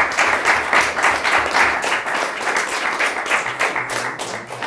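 A small audience applauding, many hands clapping densely and unevenly, easing off near the end.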